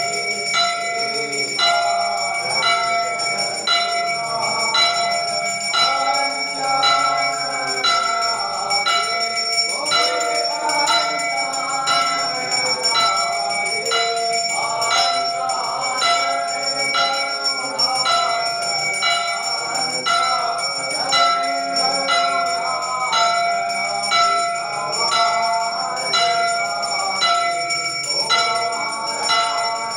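Temple bell rung steadily during aarti, about two evenly spaced strokes a second, its ring hanging on between strokes, with voices singing underneath.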